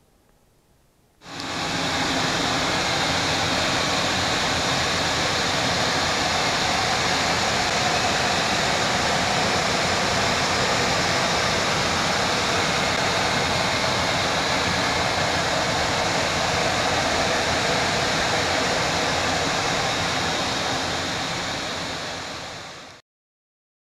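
Steady, loud rushing noise of equipment cooling air and fans in a Boeing 737-800's powered avionics bay. It starts abruptly about a second in, falls off a little near the end and then cuts off suddenly.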